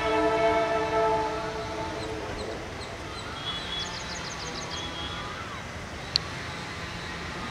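Diesel locomotive horn, WDP4B 40057's, sounding one long multi-tone blast that fades out within the first two seconds. After it, birds chirp in quick runs of notes over a steady low rumble, with one sharp click about six seconds in.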